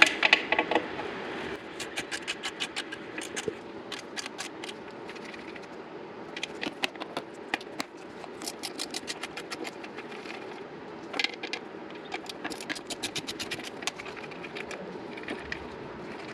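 Socket ratchet wrench clicking in repeated short runs, several clicks a second, as it turns out the bolts holding the stock license plate holder.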